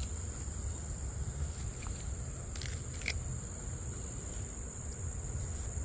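Steady, high-pitched drone of insects calling together, over a low rumble, with two faint clicks about two and a half and three seconds in.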